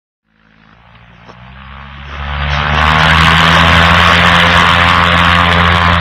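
Engine and propeller of an LN-3 Seagull light amphibian aircraft at full power on the takeoff roll, fading in over the first couple of seconds and then running loud and steady.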